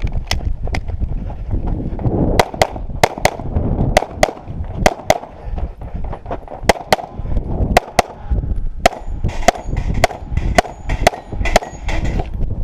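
Pistol shots fired in quick succession during a timed USPSA course of fire: about two dozen sharp reports, mostly in fast pairs and short strings with brief pauses between groups.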